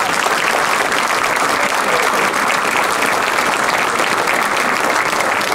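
A large crowd applauding steadily, many hands clapping at once.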